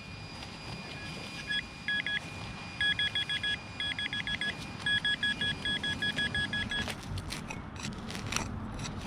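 Metal detector beeping in quick runs of short, same-pitched beeps, about eight a second, as it is held over a buried penny being dug out. Near the end the beeping stops and gives way to a few clicks and scrapes of digging in the soil.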